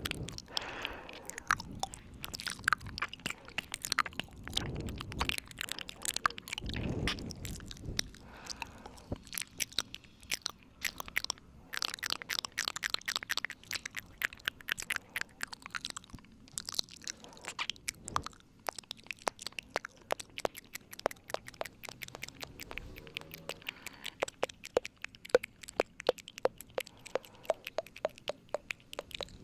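Close-miked ASMR 'ear eating' mouth sounds: a steady stream of sharp, wet clicks and smacks from lips and tongue, with a few softer swells in the first several seconds.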